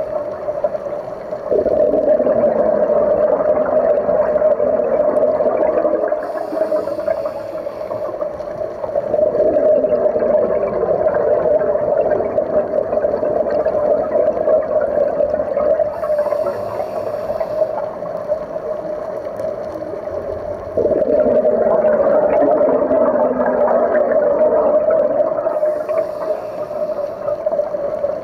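Scuba diver breathing through a regulator underwater: a short hiss on each inhalation, then a long bubbling rush of exhaled air. The cycle repeats about every ten seconds.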